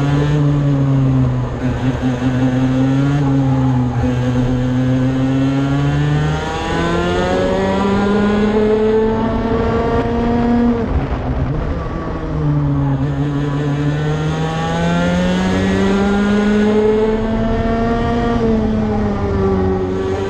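IAME X30 125cc two-stroke kart engine heard onboard at racing speed. The note holds fairly steady for the first few seconds, then climbs as the kart accelerates. About halfway through it drops sharply as the kart slows, then climbs again.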